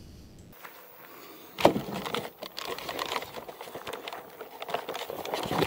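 Handling noise from a handheld camera: a sharp knock about a second and a half in, then irregular clicks and rustles with footsteps.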